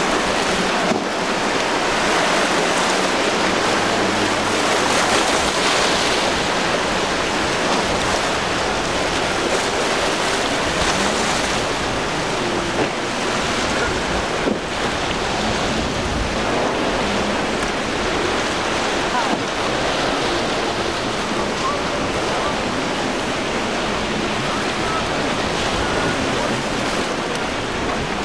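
Steady rush of surf and wind at a rough inlet, with boats' outboard motors running beneath it.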